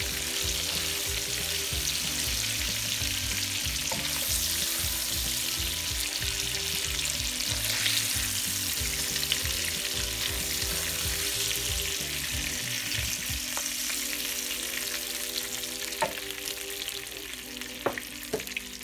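Hilsa fish steaks sizzling as they shallow-fry in ghee and oil in a nonstick wok, with a spatula working the pieces out of the pan. A few sharp taps come near the end.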